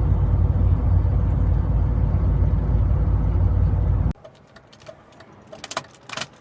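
Car engine and road noise heard from inside the cabin at highway speed, running steadily under load on an uphill, from an engine with a knocking rod. About four seconds in it cuts off abruptly, leaving near quiet with a few scattered clicks and knocks.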